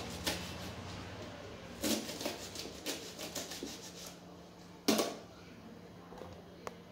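Kitchen knife chopping long beans on a plastic cutting board: a run of quick light taps, then one louder knock about five seconds in as the knife is laid down on the board.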